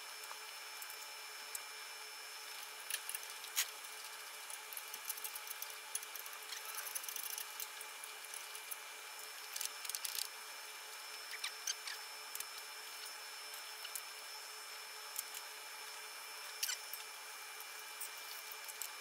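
Scattered clicks and light metal taps of hand tools and parts being handled on a riding-mower engine, some coming in quick short clusters, over a faint steady hiss.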